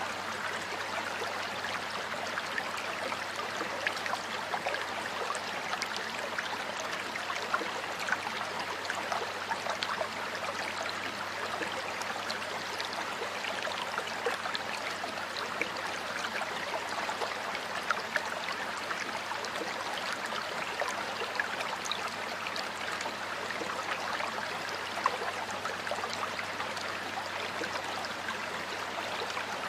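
Stream water flowing steadily over rocks, a continuous rush sprinkled with small splashes and gurgles.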